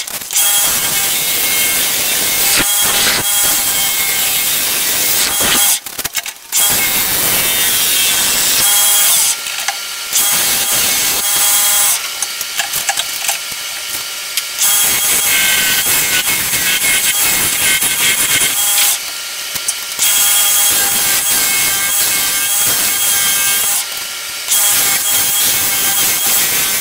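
Bowl gouge cutting a spinning wood-and-acrylic resin blank on a wood lathe: a loud, hissing scrape in long passes. The cutting breaks off several times for a second or two as the tool lifts away, leaving only the lathe's steady motor whine.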